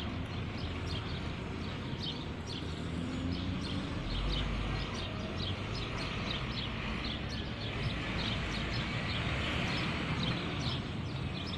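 Outdoor park ambience: small birds chirping over and over above a low steady background rumble, which swells briefly about four seconds in.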